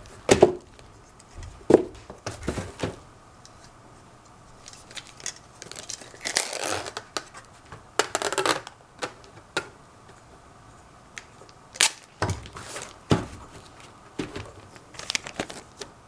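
Clear packing tape being pulled off a handheld dispenser and pressed onto a painted box, with two longer pulls of tape about six and eight seconds in. Sharp knocks and taps come from the box being turned and set down.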